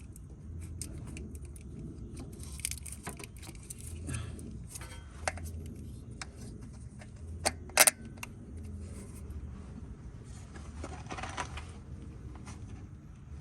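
Metal hand tools and parts clinking and clattering during reassembly, with scattered light clicks and two sharper metallic clanks a little past halfway, over a low, steady hum.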